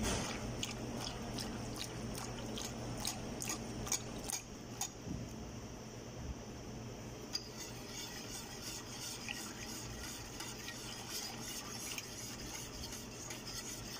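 Wire whisk stirring a thick, sticky maja blanca mixture in a large stainless steel pot: wet sloshing with light ticks of the whisk against the pot, about two a second, over a steady low hum.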